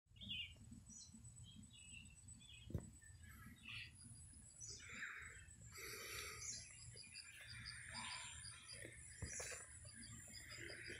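Birds chirping and calling in the trees, with scattered high chirps and, from about the middle, a rapid string of short high notes repeated about three times a second. A low rumble runs underneath, with two sharp knocks, one early and one near the end.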